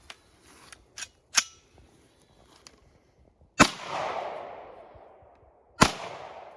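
Two rifle shots from an AR-15 in 300 Blackout, about two seconds apart, each followed by a long echo that fades away. Two light clicks come about a second in, before the first shot.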